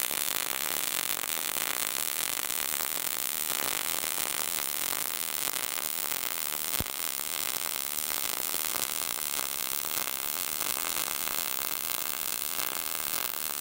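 Short-circuit MIG welding arc at 17.5 volts and 200 inches a minute wire feed on 10-gauge sheet, burning a lap weld with a steady, fast, even crackle. To the welder this is the sound of settings that are right for the material.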